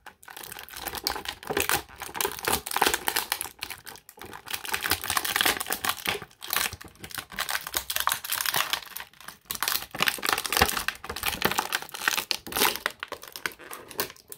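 Thin clear plastic bag crinkling and crackling as hands work an action figure out of it, in irregular handfuls of rustling with a few brief pauses.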